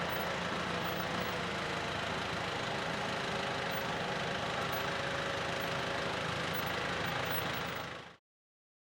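Steady engine running at a constant pitch with a droning hum, cut off abruptly about eight seconds in.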